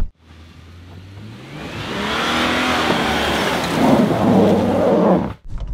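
Toyota Land Cruiser 80 series' 1FZ-FE inline-six engine revving up under load as the truck drives through deep snow, its pitch rising and growing louder about two seconds in, with rough tyre-and-snow churning noise near the end.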